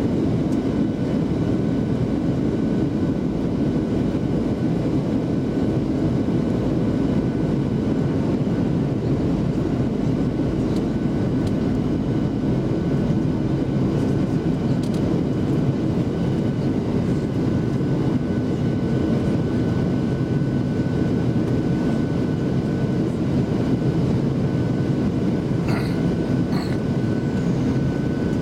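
Steady cabin noise of a Boeing 737-700 on descent, heard from a window seat over the wing: a deep, even rumble of airflow and the CFM56-7B engines, with a faint steady whine on top. A couple of faint ticks come near the end.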